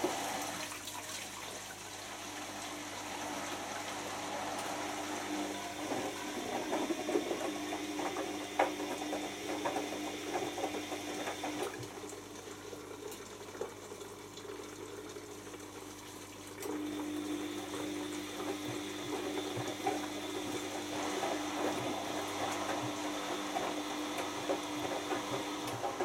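Bosch Maxx 6 washing machine's drain pump running, emptying the wash water before the spin: a steady hum with water gurgling and splashing through it. The hum drops away for a few seconds a little before the middle, then comes back.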